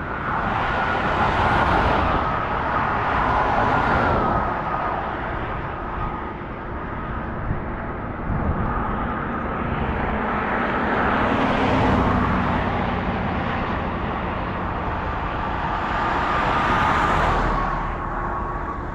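Road vehicle noise, a steady hiss and hum that swells and fades several times.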